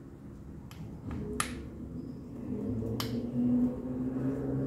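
Three sharp clicks of the oil filter cover being handled and pressed into place by hand on a KTM 790 Duke engine's crankcase, over a low hum that grows louder about halfway through.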